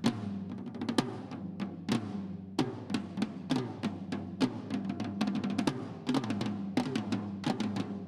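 Two snare drums played as a duet with sticks: quick, irregular strokes, some accented, with the drum heads ringing at a low pitch under them.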